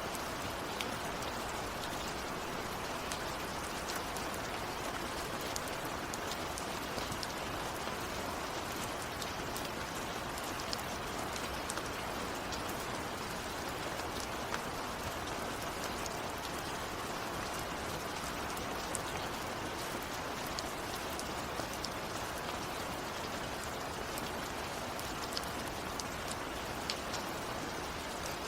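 Steady rain falling, with individual drops ticking sharply here and there over the even patter. No thunder is heard.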